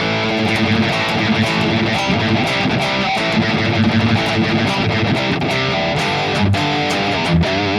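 Electric guitar played continuously through a Mooer Prime S1 preset built on the Engl Powerball amp model, with the delay switched off.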